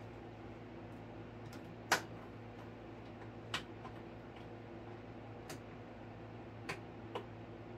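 A few sharp clicks and taps, irregularly spaced, the loudest about two seconds in, from a small hand tool and the model jet's parts being handled during assembly. A steady low hum runs underneath.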